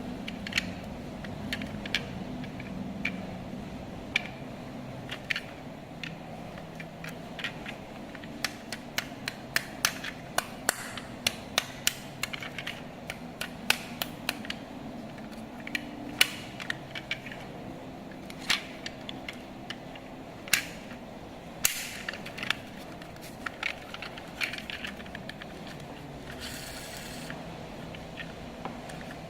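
Hard plastic parts and packaging being handled: many sharp irregular clicks and knocks with some scraping, over a steady low hum.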